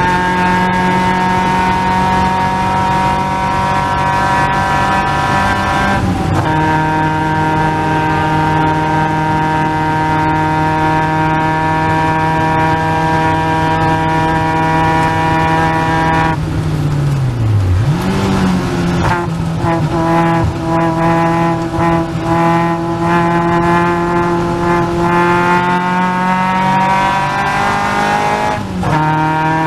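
A Caterham Seven's 2.3-litre Ford Duratec four-cylinder engine running hard at high revs, its pitch mostly held steady. The revs dip and recover briefly at three gear changes, about six seconds in, just past halfway and near the end. Just before the middle gear change there is a rush of broad noise, and after it a spell of scattered clicks and rattles.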